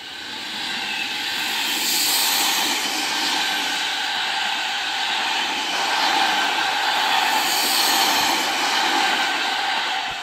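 Seibu 30000 series electric train passing: wheel-on-rail running noise rises over the first two seconds as the front approaches, then stays loud and steady as the cars go by.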